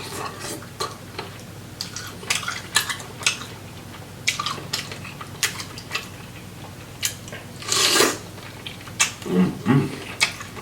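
Close-up mukbang eating of sauce-coated boiled shrimp: wet chewing and lip smacks in quick irregular clicks, with one louder noisy burst about eight seconds in and a brief low voiced sound just after.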